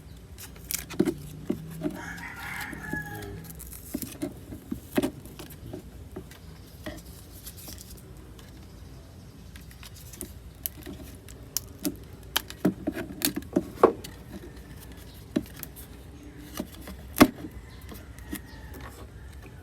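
Scattered small clicks and taps of hands working on a Bluetooth speaker's parts, with a rooster crowing in the background about two seconds in.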